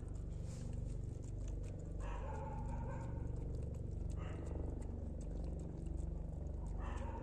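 A dog eating curd rice from a metal plate: wet chewing and lapping, with many small clicks of mouth and food against the plate. A steady low hum runs underneath.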